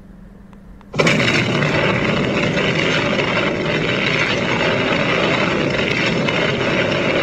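Roar of a nuclear test explosion on archival film footage, starting suddenly about a second in and holding loud and steady. Faint room tone comes before it.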